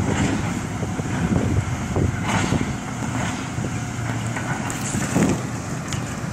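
Heavy demolition excavator's diesel engine running under load, with scattered cracks and crunches of a building being broken up, the clearest about two seconds in and again about five seconds in.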